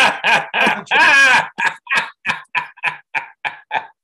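A man laughing heartily: a run of voiced 'ha' bursts, one drawn-out burst about a second in, then shorter, quicker bursts about four a second that trail off toward the end.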